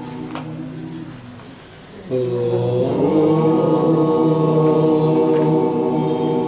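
Chanting of a mantra in long held notes: one note fades away, then a new note starts about two seconds in with a slight upward slide and is held.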